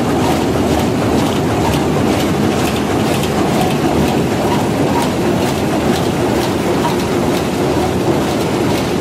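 Mushroom processing-line machinery running: a steady mechanical rattle with a fast, irregular patter of small ticks.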